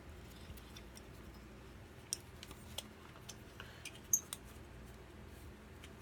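Hand tools working on a small two-stroke engine being taken apart: a few scattered light clicks and ticks of metal and plastic parts, the sharpest click about four seconds in.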